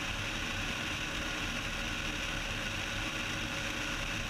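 Steady drone of a Cessna 172's piston engine and propeller in flight, holding an even level, in a pause between radio calls.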